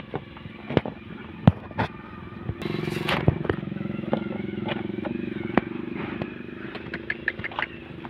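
Plastic spoon clicking and scraping against a plastic tub of cooked rice in sharp, irregular knocks. A motorbike engine comes in steadily running underneath about two and a half seconds in.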